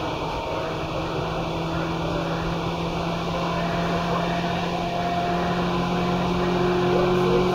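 Seibu 2000-series electric train running, its traction motors and running gear giving a steady low hum. A higher tone comes in about four seconds in, and the sound grows louder toward the end as the train picks up speed.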